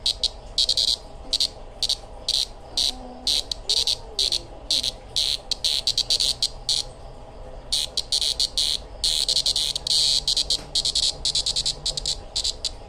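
A cicada held between the fingers buzzing in rapid, irregular pulses, with a short pause near the middle and a longer unbroken buzz about two-thirds of the way through.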